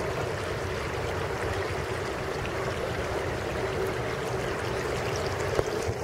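Shallow stream of water running steadily over a rocky beach.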